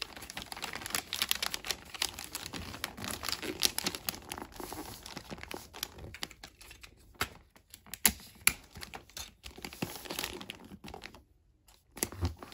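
Wrapping paper crinkling and rustling as hands fold and crease it around a cardboard shoe box, with scattered sharp crackles. The crinkling is dense for the first six seconds, then sparser, and goes briefly quiet about a second before the end.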